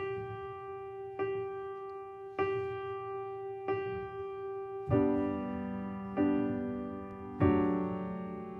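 Slow solo piano music: one note struck about once every 1.2 seconds, joined by fuller, lower chords a little before five seconds in.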